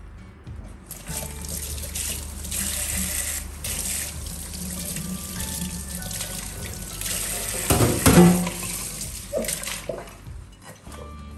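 Kitchen tap running into a stainless-steel sink as dishes are rinsed under the stream; the water starts about a second in and stops near the end. About eight seconds in, dishware knocks loudly against the sink.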